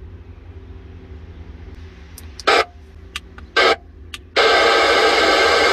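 Static from the speaker of a compact 40-channel AM CB radio as a distant station fades out of range: two short crackles, then about a second and a half of loud hiss near the end. A low steady hum runs underneath.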